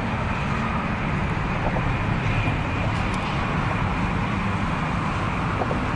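Steady rumble of road traffic, even and unbroken.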